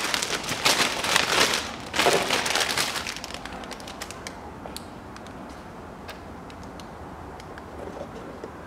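Plastic packaging crinkling and tearing as a new panel air filter is pulled out of its bag, for about the first three seconds. After that it goes much quieter, with a few light clicks and taps as the filter is handled and set into the airbox.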